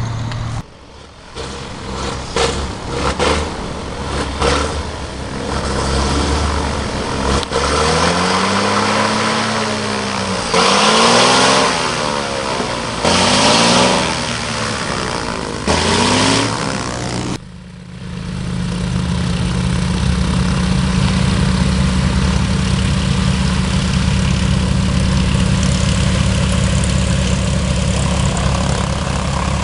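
Soko J-20 Kraguj's 340 hp Lycoming GSO-480 supercharged flat-six piston engine and three-blade propeller running as the aircraft taxis close by. In the first half it surges in several short, louder bursts with a wavering pitch; from about halfway it holds a steady, even note.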